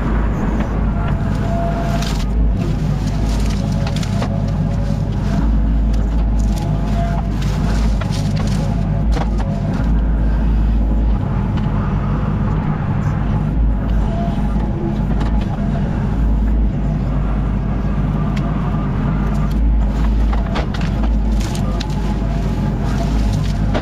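Yanmar Vio25 mini excavator's diesel engine running steadily under working load. A few sharp knocks or snaps come and go over the steady engine note.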